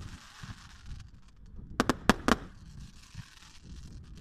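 Display fireworks exploding: a quick cluster of four sharp bangs about two seconds in.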